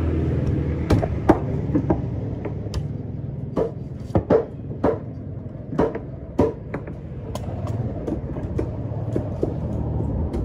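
Heavy cleaver chopping tuna on a thick wooden block: a run of sharp, irregularly spaced knocks. A steady low rumble runs underneath.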